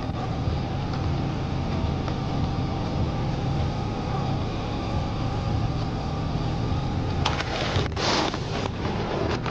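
Steady low rumble of a running motor vehicle, with a brief rush of noise about eight seconds in.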